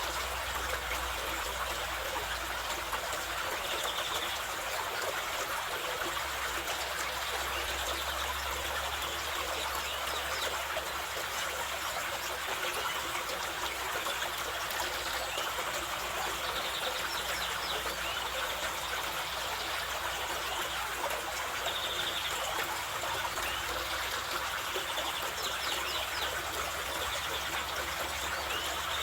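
Mountain river rushing steadily, with a few short bird chirps now and then above the water.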